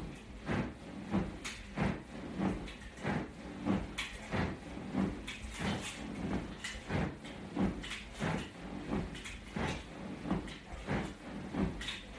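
Even, rhythmic short sounds, about three every two seconds, from a man doing sit-ups on a padded exercise mat with his feet strapped to a floor-level bar.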